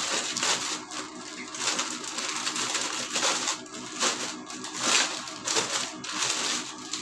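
Plastic bag wrapping a folded T-shirt crinkling and rustling in irregular spells as it is handled and unwrapped.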